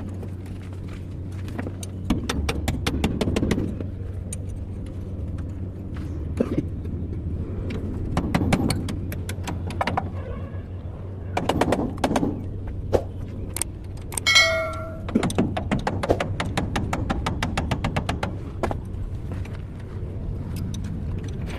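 A vehicle engine running steadily, with many scattered metallic clinks and knocks over it and one brief high-pitched tone about fourteen seconds in.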